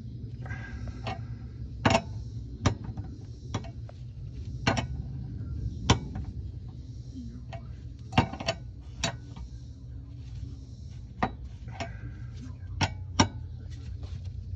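Open-end wrench clicking against the hose fittings of a transmission oil cooler as the fittings are tightened: a dozen or so sharp, irregular metal clinks over a steady low hum.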